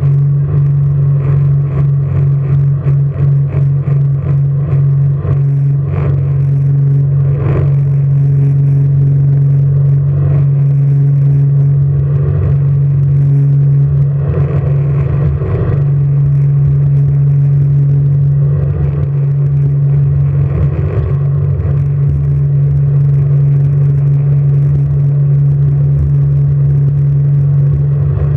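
Jet boat's engine running with a steady, unchanging low drone, with irregular knocks and thumps over it, most in the first few seconds.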